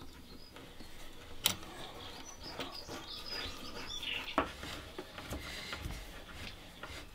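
Long hand screwdriver driving a washered screw through a vermiculite board into the wall: quiet scraping and small clicks, with one sharp click about a second and a half in.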